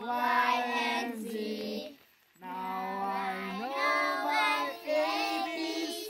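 A group of Hmong children singing together in unison, their voices holding and sliding between sustained notes, with a brief break for breath about two seconds in.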